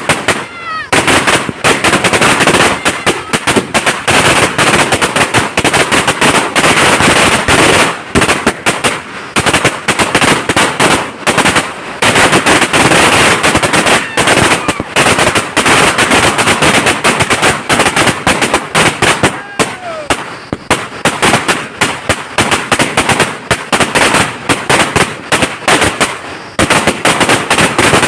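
A 1000-shot firecracker string (ladi) going off in a rapid, continuous volley of sharp bangs, like machine-gun fire, with a few brief lulls.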